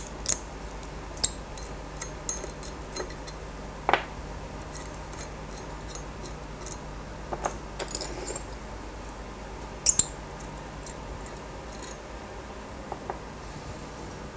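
Scattered light metallic clinks and taps of hand tools and parts on a Rotax 582 engine as its starter ring gear assembly is taken off, the sharpest about a second in, near four seconds and near ten seconds. A steady low hum runs underneath.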